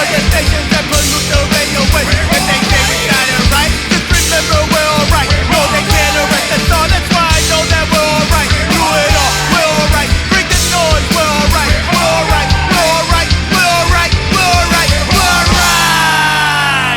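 Loud punk rock song with pounding drums and distorted electric guitar, ending in a downward pitch slide.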